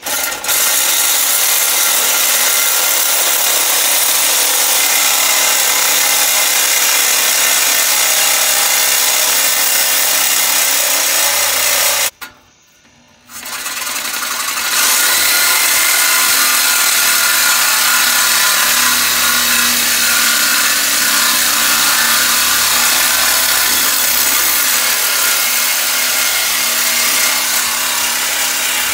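Cordless reciprocating saw cutting through the exhaust pipe at the muffler, a steady harsh rasp. It stops for about a second near the middle, then starts again and runs on.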